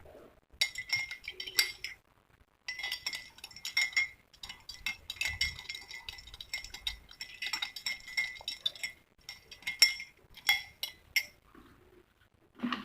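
A spoon stirring in a drinking glass, clinking rapidly against the sides with a ringing glass tone. There is a short burst of stirring, a longer run of about six seconds, then a few separate taps on the rim near the end.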